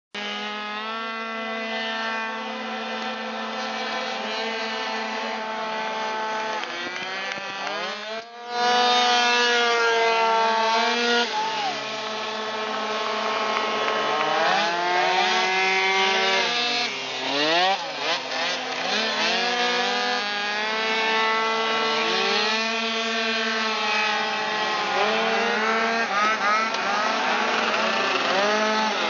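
Several racing scooters running around a circuit, their engines buzzing at high revs. The sound is steady at first, then louder from about eight seconds in, with the pitch rising and falling as the scooters speed up, slow down and pass close, several engines at once.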